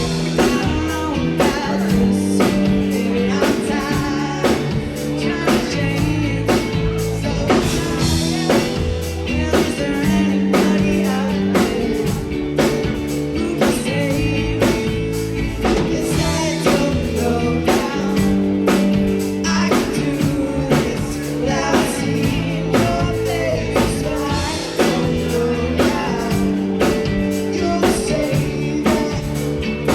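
Live rock band playing: drum kit keeping a steady beat under electric guitar and bass, with a singer.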